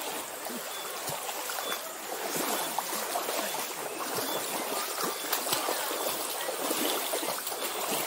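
Shallow stream water running over rocks, a steady busy gurgling and trickling.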